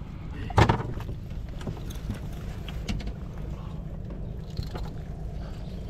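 Steady low rumble of a small fishing boat, with one loud knock about half a second in and a few lighter clicks and taps.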